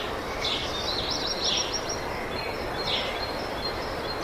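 Small birds chirping in short high-pitched clusters over a steady outdoor noise.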